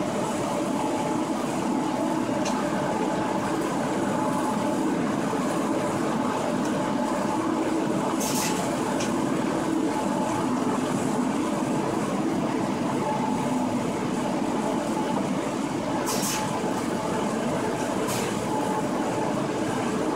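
Running noise inside the cab of a DB class 143 electric locomotive at speed: a steady rumble from the wheels on the track with a faint steady hum. Two brief high hisses come about 8 and 16 seconds in.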